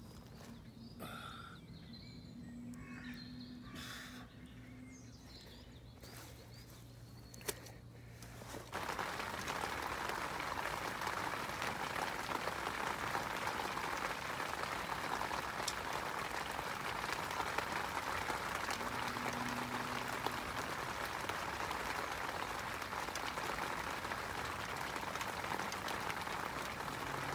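Faint bird calls over quiet outdoor ambience, then about nine seconds in a louder, steady, even hiss cuts in abruptly and carries on.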